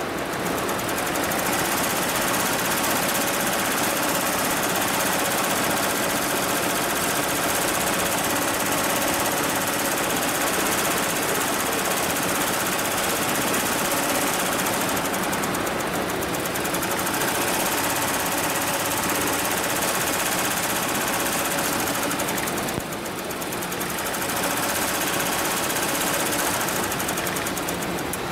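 HIGHTEX 7201 single-head, 12-needle embroidery machine stitching at speed, its needle bar and hoop drive making a fast, steady mechanical chatter. There is a short lull about three-quarters of the way through before it picks up again.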